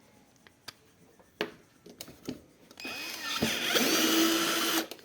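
A few light clicks, then a small electric motor runs for about two seconds from about three seconds in and cuts off suddenly near the end.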